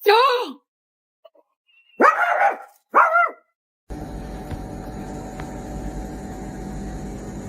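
A dog barking three times: short, loud calls that bend in pitch, the last two close together. After them, a steady low hum and hiss sets in.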